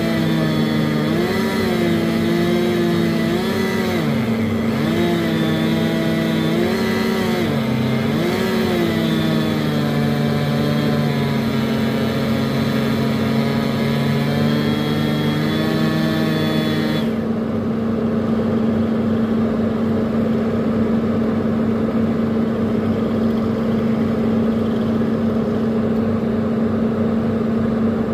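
Kobelco hydraulic excavator running. Its engine note wavers and dips again and again as the machine is worked, then about two-thirds of the way through it settles into a steady drone.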